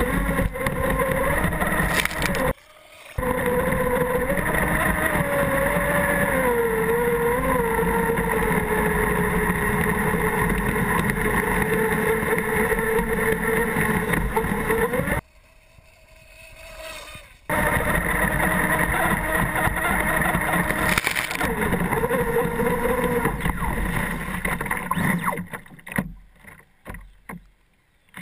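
Electric RC speedboat (ProBoat Miss Geico) running fast over choppy water, heard from on board: a motor whine with a wandering pitch over rushing water and spray. The sound cuts out abruptly for a moment about three seconds in and for about two seconds in the middle. Near the end it breaks up and dies away as the boat slows to a coast.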